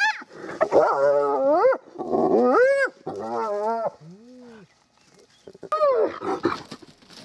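Spotted hyenas at the den calling: a run of separate, strongly pitched calls that sweep up and down, several in the first four seconds, then a short pause and one more falling call about six seconds in.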